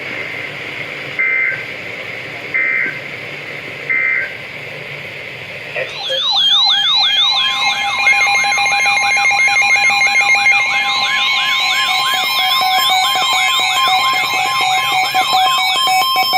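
Emergency Alert System broadcast tones: three short bursts of the screeching data code that closes an alert. From about six seconds in, a loud siren-like warble repeats about two and a half times a second, and soon after it is joined by the steady two-tone EAS attention signal, which opens the next alert.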